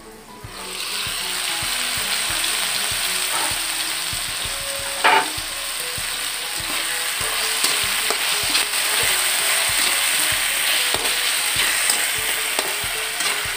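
Chicken pieces and tomatoes sizzling in hot oil in a pan while being stirred, with a spatula clicking and scraping against the pan. The sizzle gets louder about half a second in, and there is one louder knock about five seconds in.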